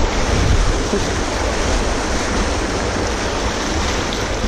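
Fast-flowing river water rushing steadily over and around rocks.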